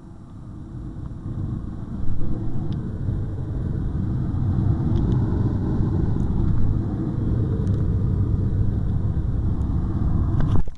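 Loud rushing airflow over a light aircraft's cockpit, swelling over the first two seconds, then steady until it cuts off abruptly near the end.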